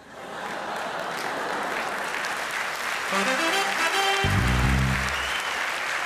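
Studio audience applauding after a punchline. About three seconds in, a short musical sting plays over the applause: a quick run of notes ending in a low bass hit.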